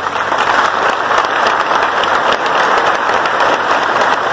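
A large audience applauding, steady massed clapping.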